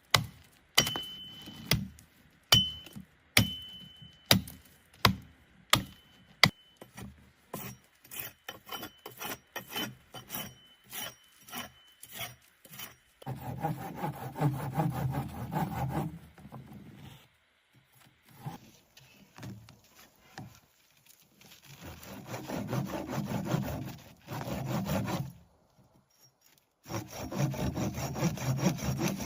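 A run of sharp knocks on wood, each with a short ring, at about one a second and then faster and lighter. Then three spells of sawing wood, each a few seconds of rhythmic strokes.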